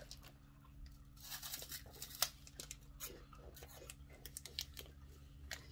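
Faint crinkling and rustling of a plastic Umaibo snack wrapper being handled, with one sharper crackle a little over two seconds in.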